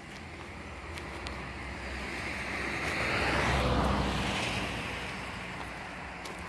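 A vehicle passing by: a rushing noise with a low rumble that swells to its loudest about three and a half seconds in, then fades.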